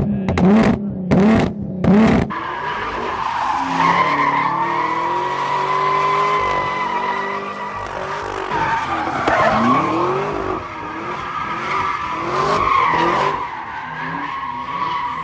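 A car engine revved in quick bursts, about two or three a second, for the first two seconds. Then a car spins donuts: the tyres squeal in a steady high screech while the engine rises and falls beneath it.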